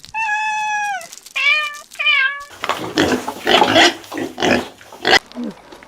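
Pigs calling: three high, drawn-out squeals, the first about a second long and falling at its end, followed by a run of rough grunts and squeals.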